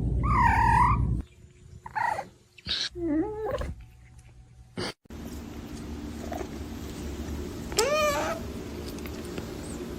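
Cat meowing: several short meows in the first few seconds, then one longer rising meow near the end.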